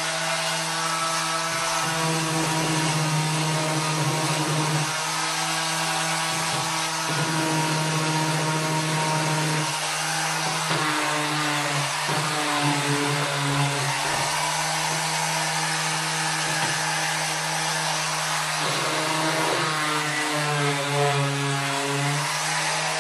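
Electric random orbital sander running continuously on wooden slats, a steady motor hum with a whirring hiss, its pitch dipping and recovering a few times.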